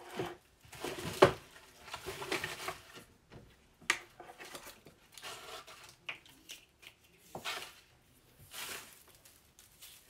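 Craft supplies being handled and rummaged through: irregular rustling and small clicks, with a sharp click about a second in and another near four seconds.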